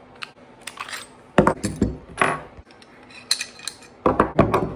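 Semi-automatic pistol being field-stripped by hand: a series of sharp metal clicks and clacks as the slide, recoil spring and guide rod, and barrel come apart and are set down on a wooden table, loudest in a quick cluster near the end.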